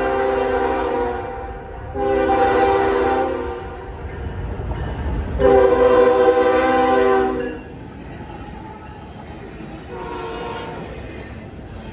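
Freight locomotive air horn sounding a series of blasts: one ending about a second in, another about two seconds in, the loudest and longest about five and a half seconds in, and a fainter one near the end, over the low rumble of the train.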